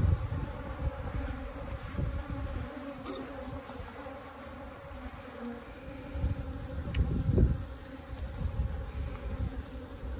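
Africanized honeybees buzzing steadily around their opened hive, a mass of wingbeats. Loud low rumbles break in near the start and again about seven seconds in.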